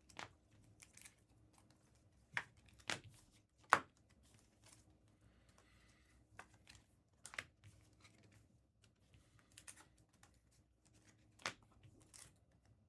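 Trading-card packs and cards being handled: scattered sharp crinkles, snaps and clicks of foil wrappers and card stock, a few of them louder than the rest.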